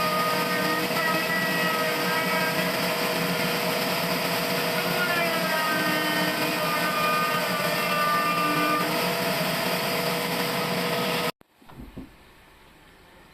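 Sawmill machinery running loud and steady with a whine that shifts in pitch, cutting off suddenly near the end, followed by a few faint low knocks.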